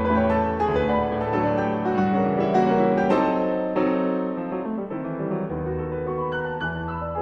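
Background piano music, notes and chords played at a moderate pace.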